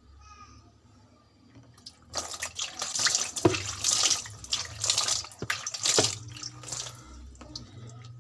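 Water running and splashing from a tap as a washing machine's detergent filter is rinsed clean, loudest from about two seconds in until about seven seconds in, with a few sharp knocks among the splashes.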